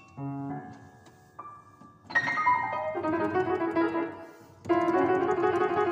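Grand piano played solo: a soft chord, a lone high note, then a loud chord about two seconds in followed by fast repeated notes. After a brief dip, a loud, dense stretch of rapid repeated notes runs through the end.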